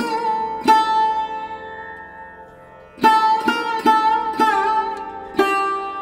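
Background music on a plucked string instrument with bending, sliding notes. A long note rings out and fades, then a quick run of plucked notes begins about three seconds in.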